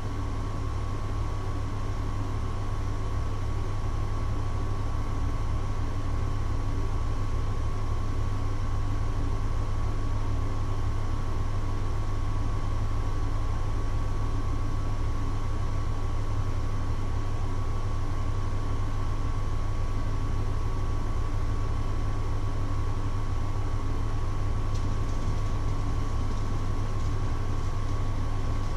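Steady low machine hum with a thin, unwavering high whine over it, unchanging throughout.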